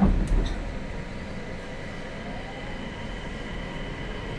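The sliding doors of a Nagoya Municipal Subway 2000 series car close with two thumps in quick succession. The train then starts off: its refurbished IGBT VVVF inverter and traction motors give a faint rising whine under the steady running noise.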